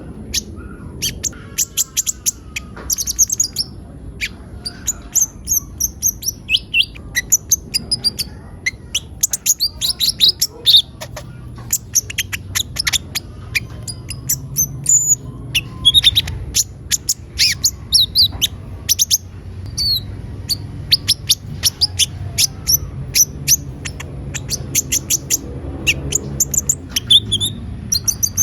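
Kolibri ninja (konin) sunbird singing continuously: a fast, busy run of high chirps, trills and short sweeping notes with hardly a pause.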